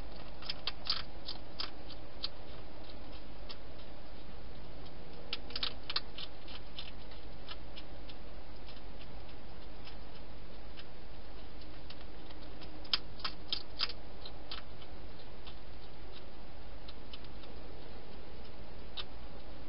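A wild hedgehog eating in a plastic feeding box: bursts of sharp clicks and crunches as it chews, coming in clusters a few seconds apart, over a steady low hum.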